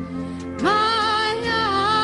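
Slow country ballad: a woman's singing voice comes in over the instrumental accompaniment about half a second in, sliding up into one long held note.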